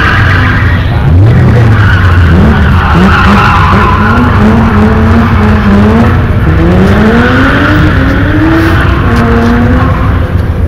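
BMW M3 Compact rally car's engine revving hard, its pitch climbing and dropping again and again as the driver works the throttle and gears, with tyres skidding and squealing on the tarmac. The revs climb sharply about a second in and again just past the middle.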